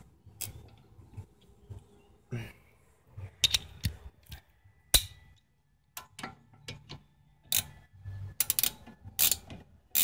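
Socket ratchet clicking in short spells and steel tools clinking on a rear brake caliper bolt as the bolt is run in, with irregular sharp clicks that come faster near the end.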